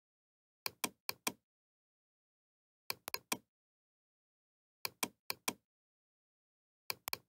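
Computer mouse clicks, sharp and dry: four quick pairs of double-clicks, about two seconds apart, opening folders one after another.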